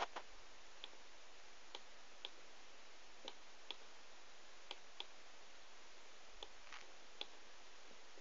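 Faint, sharp clicks at irregular intervals, roughly one every half second to a second, over a steady low hiss.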